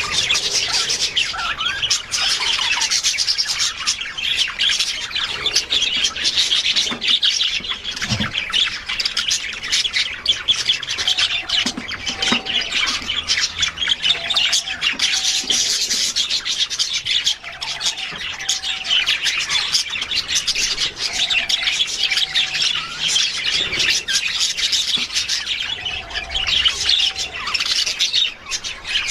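Budgerigars chattering and squawking without a break: a dense, continuous high warble with short repeated lower notes now and then.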